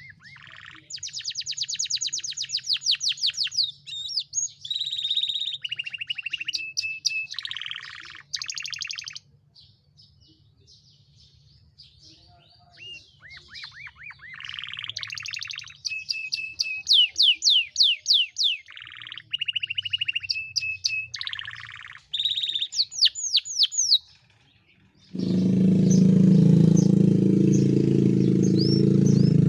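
Domestic canary singing a long, varied song of rapid trills and fast repeated sweeping notes, in phrases broken by short pauses: an 'isian' canary song full of learned phrases. Near the end a louder, steady low rumbling sound cuts in under faint high chirps.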